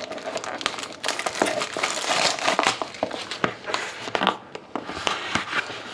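Packaging crinkling and crackling as a sealed trading card box is unwrapped and opened by hand, an irregular run of small crackles and rustles.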